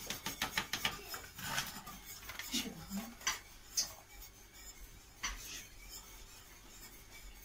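A paper sachet of whipped-cream powder rustling and being tapped empty over a plastic bowl, a quick run of crinkling clicks in the first two seconds. Then a few separate sharp knocks and clatters as kitchen items, a hand mixer among them, are picked up on the counter.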